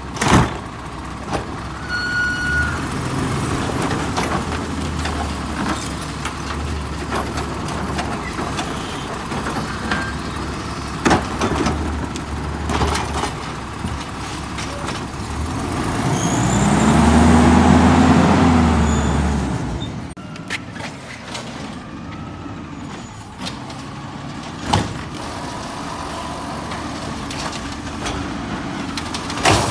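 Garbage truck engine running, with a few sharp knocks and clanks. Around the middle the engine revs up and back down over a few seconds, the loudest part.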